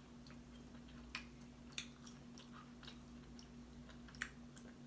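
A person chewing food close to the microphone: faint, irregular wet clicks of the mouth, over a steady low electrical hum.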